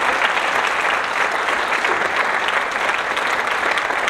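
Audience clapping steadily: many people applauding at once.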